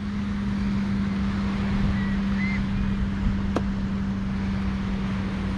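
Wind buffeting the microphone, with a steady low hum underneath and one sharp click about three and a half seconds in.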